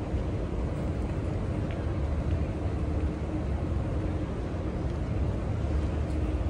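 Steady outdoor background noise, mostly a low rumble, with no clear single event.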